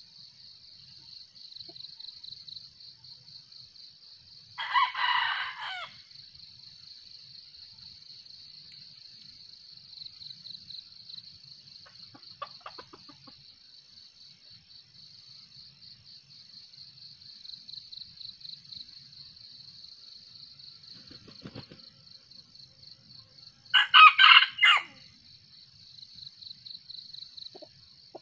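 Red junglefowl rooster crowing twice, each crow short at about a second, some twenty seconds apart. A steady high chirring of insects runs underneath.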